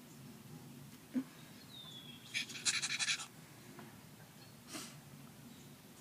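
A person making a rapid, breathy panting noise, a quick run of short puffs lasting about a second, with a single softer puff a couple of seconds later and another run of puffs starting near the end.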